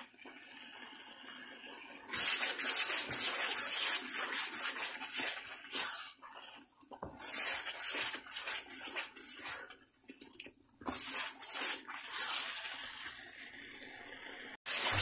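Tomato-paste masala sizzling and spluttering in hot oil in a wok as it is fried and stirred with a spatula. It is quieter for about the first two seconds, then sizzles louder with crackles, frying down until the oil separates.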